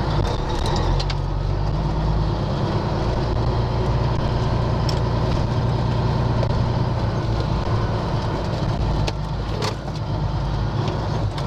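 Peterbilt 379 truck's diesel engine running steadily at low revs as the truck creeps along, with a couple of sharp clicks near the end.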